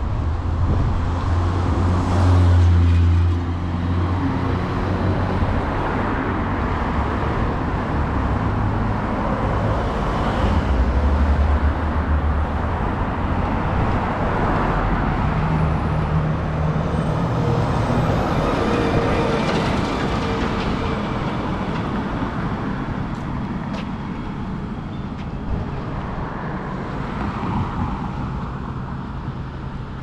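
City street traffic: cars passing one after another with engine hum and tyre noise swelling and fading. The loudest pass is about two to three seconds in, with another around ten to twelve seconds in.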